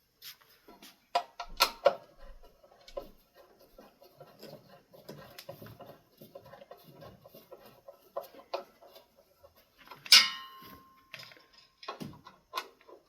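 Scattered clicks and knocks from handling metal ceiling-fan mounting hardware. About ten seconds in comes one sharp metallic clank that rings briefly.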